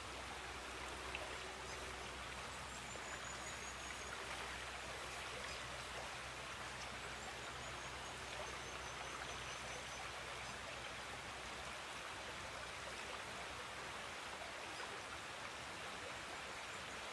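River current flowing over shallow riffles: a steady, even rushing of water.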